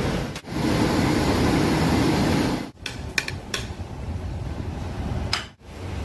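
Steady roar of a commercial kitchen's gas burners and extractor fans, cut off by an edit a little under halfway; then a quieter steady hum with a few short light clicks.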